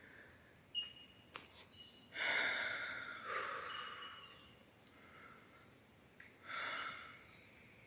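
A person breathing out in two long, deep sighs, the first about two seconds in and the second near the end, over faint high bird calls in the rainforest.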